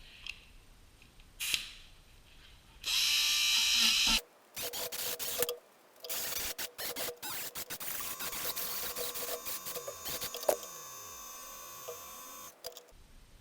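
Power-tool sounds in short cut-together clips: a loud hissing burst about three seconds in, then a machine running with a steady high whine from about eight seconds in, ending abruptly near the end.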